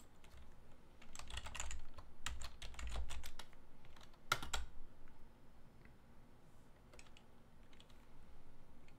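Typing on a computer keyboard: a quick run of keystrokes, then one louder keystroke a little after four seconds in, and a few faint clicks after that.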